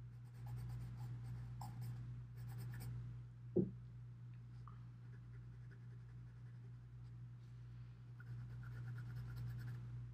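Faint scratching of a 2B graphite pencil (Staedtler Mars Lumograph) on sketch paper, in short repeated strokes as a dark wooden piling is shaded in. The scratching comes in two spells, with a brief louder sound about three and a half seconds in.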